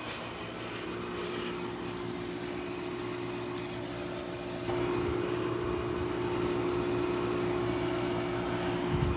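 Air conditioner running with a steady hum. A little under halfway through it steps up and gets louder.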